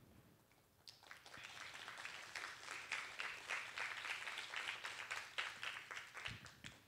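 Faint audience applause: a patter of many hands clapping that starts about a second in, holds, and dies away near the end.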